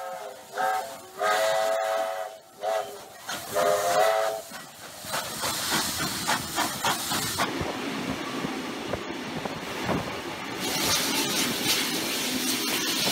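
Steam locomotive's chime whistle sounding about four short blasts, followed by the steady hiss and rapid exhaust beats of a steam locomotive working hard at speed.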